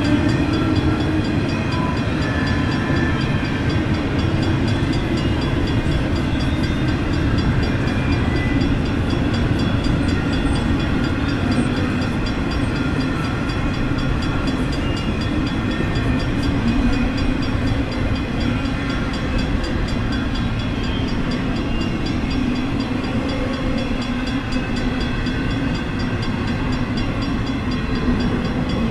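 N scale model train running steadily on its track: a continuous rolling rattle and whir from the long string of small ore cars' wheels and the locomotives' motors, with no change in pace.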